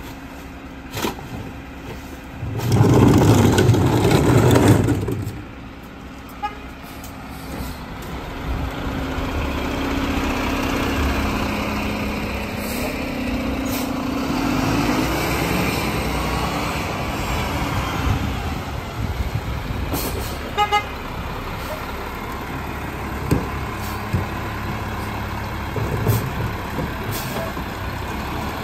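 Mack rear-loader garbage truck: a loud burst of noise lasting about two seconds early on, then its diesel engine running steadily louder as the truck pulls away and drives past close by, with a quick run of short toots about twenty seconds in.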